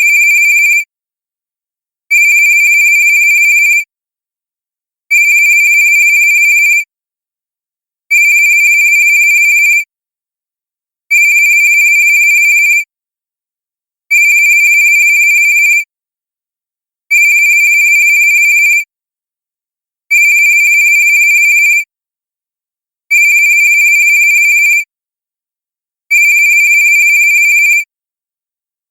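Cartoon-style cell phone ringtone: a loud, steady high electronic tone lasting about two seconds, repeating every three seconds with silence between rings.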